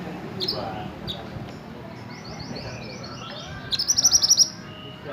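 A mantenan (minivet) songbird singing. Two short high chirps come first, then a run of quick down-slurred notes, and near the end a loud, fast trill of about ten high notes.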